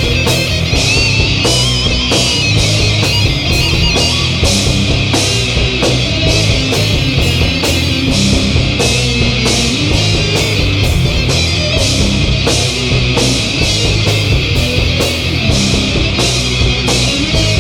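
Stoner rock band playing live and loud: electric guitar and drum kit, with cymbals struck on a steady beat.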